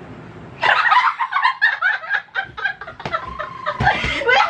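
Several young women laughing loudly together with squeals, starting about half a second in, with a few dull thumps near the end as cushions are swung and hit.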